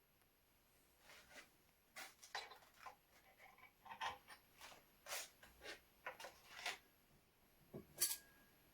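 Irregular light clicks, taps and short scrapes of small metal parts and tools being handled on an antique percussion shotgun, starting about a second in, with one sharper click near the end.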